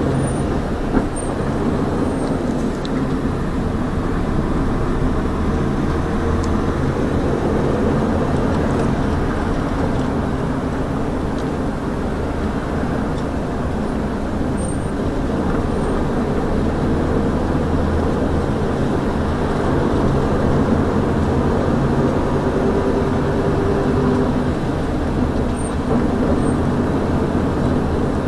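Inside a small city bus on the move: steady engine drone and road noise, the engine's pitch shifting a little as it drives.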